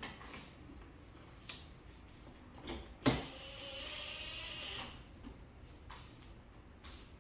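Cordless drill running for just under two seconds, starting with a sharp click about three seconds in, as it turns a screw in a wall plate. A few faint clicks and handling knocks come before it.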